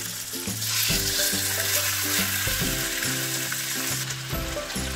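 Raw chicken thighs and drumsticks sizzling as they sear in hot olive oil in a nonstick frying pan, the sizzle growing louder about half a second in. Light background music plays underneath.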